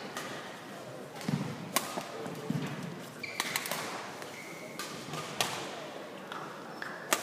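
Badminton rally: several sharp cracks of rackets striking the shuttlecock a second or two apart, with the players' footsteps thudding and brief shoe squeaks on the court mat.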